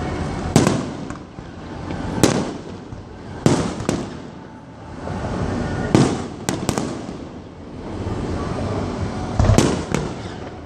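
Aerial fireworks shells bursting in sharp bangs, about nine in all and some in quick pairs, over a continuous rushing noise between them.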